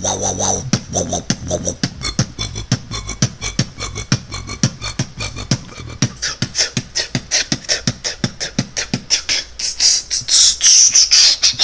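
A person beatboxing: a fast run of mouth-made drum strikes, clicks and hi-hat hisses, with a louder, hissier stretch near the end.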